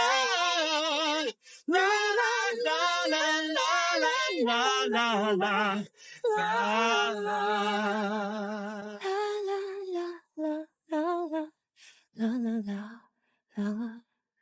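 A high, clear voice singing a wordless vocalise with wide vibrato, with little or no accompaniment. From about nine seconds in it breaks into short separated phrases with brief silences between them.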